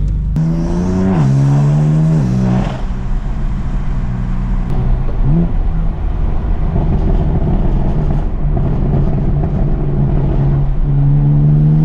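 BMW M4 CS's twin-turbo inline-six accelerating, its pitch climbing and dropping twice in quick upshifts, then running fairly steady at cruise with a short rev around the middle, and climbing again near the end.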